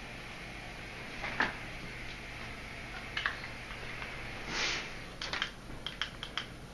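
Quiet indoor room tone with a steady low hum, broken by a few small clicks and taps and one short swish about two-thirds of the way through.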